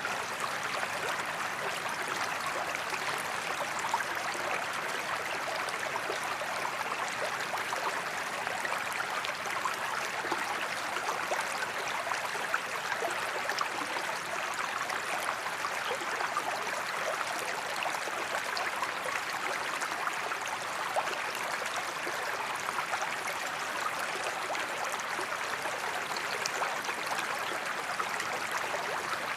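Forest creek running steadily, a constant babble of water with many small splashes.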